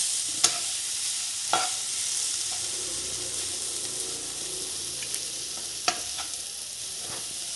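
Wooden spatula stirring chopped cabbage, carrot and onion filling in a nonstick pan, over a steady soft sizzle, with a few sharp taps of the spatula against the pan. The filling has been roasted dry, with no moisture left in it.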